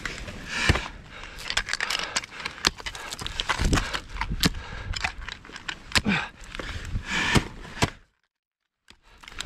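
Ice climbing gear handled on the ice: irregular sharp clicks, knocks and scrapes of ice axes and metal hardware, over close rustling. The sound cuts out to silence for about a second near the end.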